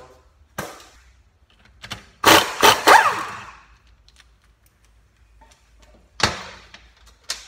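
Impact wrench spinning off the 17 mm nut that holds the recoil cup on a Yamaha Kodiak 400 engine: about a second of rapid hammering, its motor pitch rising and falling. A single sharp knock comes later.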